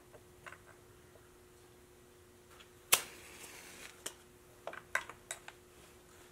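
A pocket lighter struck once about three seconds in: a sharp click followed by a short hiss of the flame, lit to shrink heat-shrink tubing over a soldered wire joint. Around it, small clicks of wires and tubing being handled, over a faint steady hum.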